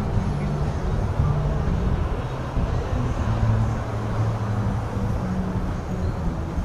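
Steady street traffic noise: cars and engines going by, a continuous low rumble with an engine hum that rises and fades.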